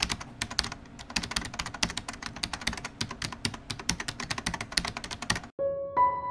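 Rapid, uneven clicking like fast keyboard typing, a sound effect for an animated logo intro; it cuts off suddenly about five and a half seconds in, and soft piano music begins.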